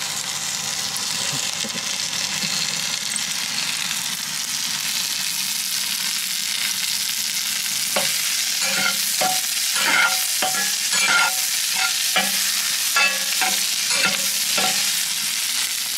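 Onions frying in butter in a cast iron skillet, sizzling steadily. From about halfway, a spatula stirs them, scraping against the pan in short, repeated strokes.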